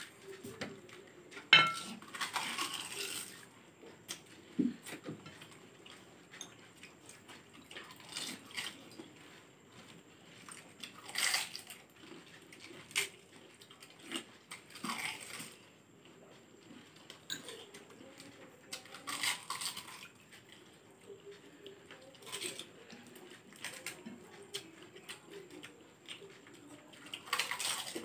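Two people eating pani puri at speed: scattered clinks of puris and fingers against glass bowls and plates, and short bursts of crunching and slurping as the water-filled puris are eaten.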